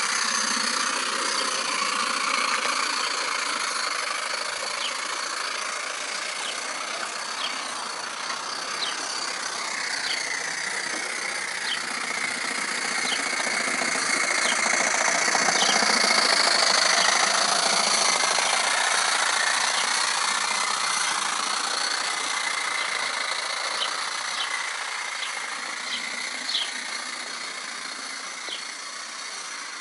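Coal-fired model steam locomotive running along a garden railway: a steady hissing, mechanical running sound with light clicks every second or so. It grows louder as it comes close about halfway through, then fades as it draws away.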